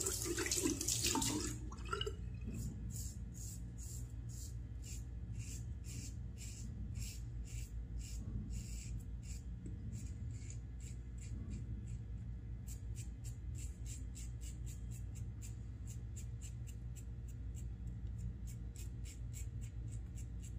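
Water splashing in the sink for the first couple of seconds. Then a safety razor scraping through lathered stubble, a short crisp scratch with each stroke, a few strokes a second, coming thicker in the second half.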